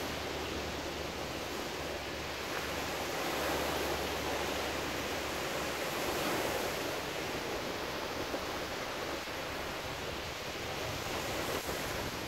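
Small ocean waves breaking and washing up on a sandy shore: a steady surf wash that swells twice as waves break close in.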